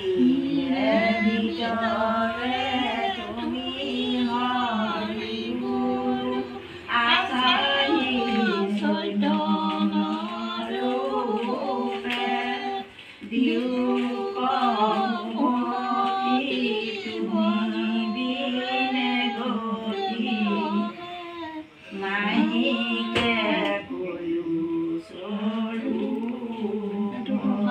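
Women singing a devotional hymn without instruments, in long drawn-out lines with brief pauses about 13 and 22 seconds in.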